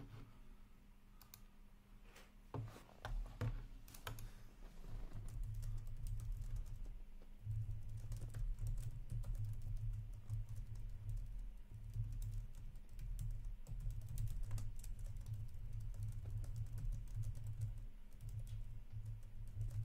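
Scattered clicks of typing on a computer keyboard, over a low rumble that comes and goes.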